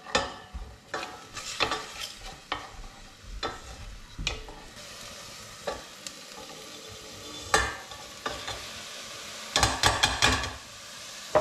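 Wooden spoon knocking and scraping around a stainless saucepan as garlic in oil starts to sizzle with a steady hiss. Near the end comes a quick clatter of knocks as sliced leeks go into the pan and are stirred.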